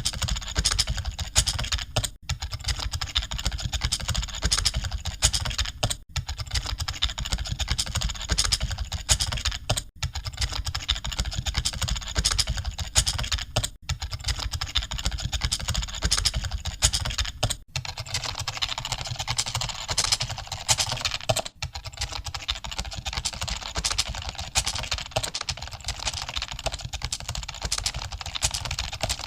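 Computer keyboards being typed on in an exam hall, a dense and continuous clatter of key clicks. The sound drops out for a split second about every four seconds.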